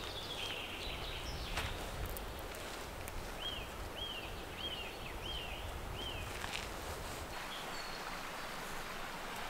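A small bird repeats a short, arched call about twice a second: a few calls at the very start, then a run of five in the middle. Beneath it lies steady outdoor background noise with a low rumble that fades out about two-thirds of the way through.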